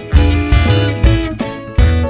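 Instrumental background music: plucked string notes over a steady bass beat.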